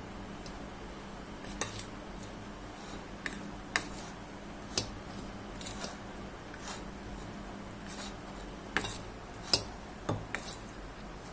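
Steel spoon scraping and clinking against a stainless steel plate while mixing a coarse ground peanut and roasted gram powder with oil into a paste: irregular sharp clicks, the loudest about nine and a half seconds in.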